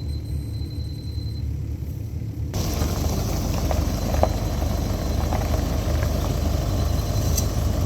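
Diesel engine of a CAT 308 mini excavator running steadily with a low pulsing rumble. About a third of the way in the sound abruptly becomes fuller and brighter, with a few scattered knocks.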